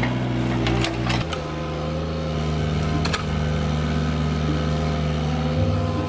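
Mini excavator's diesel engine running steadily under work, its note stepping to a new pitch a couple of times, with a few sharp clanks from the bucket and arm.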